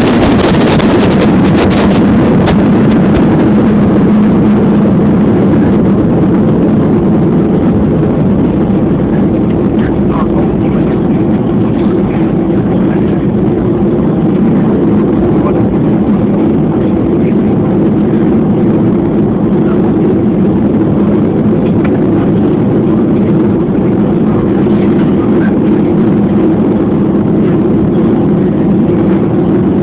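Airliner cabin noise during landing: a steady, loud rumble of jet engines and airflow with a low drone, its upper hiss easing a little after the first few seconds.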